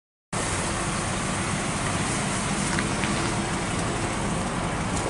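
Steady low hum of a car engine idling, under an even outdoor hiss, with a couple of faint clicks about three seconds in.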